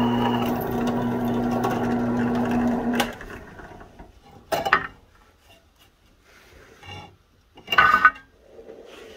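Drill press motor running steadily as a twist bit cuts through leaf-spring steel, then switched off about three seconds in. A few brief clatters follow, the loudest near the end.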